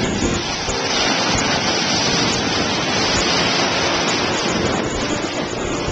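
Ocean surf breaking and washing up a sandy beach: a steady, dense rushing of water, with wind buffeting the microphone.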